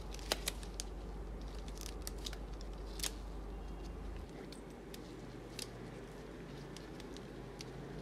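Faint scattered clicks and taps of metal tattoo machines being handled, as a rubber band is stretched onto a coil machine and a rotary machine is picked up. Under them runs a low steady hum that drops away about four seconds in. Neither machine is running.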